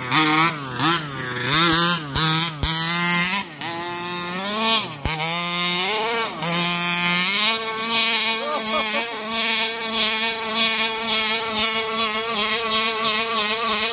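A 1/5-scale Rovan RC buggy's 29cc two-stroke petrol engine revving up and down in quick blips. From about halfway through it holds a steady high-pitched buzz at high revs.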